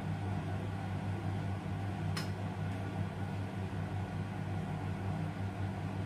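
Steady low hum, like a motor or appliance running, with a single sharp click about two seconds in.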